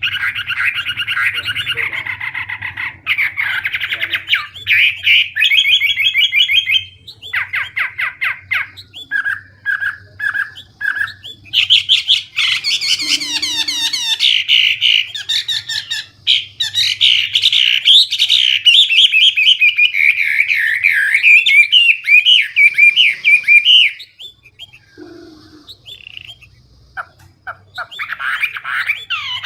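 A Chinese hwamei singing loudly, a long run of rapid, varied phrases and trills packed with mimicked calls, with a pause of a few seconds near the end before it starts again.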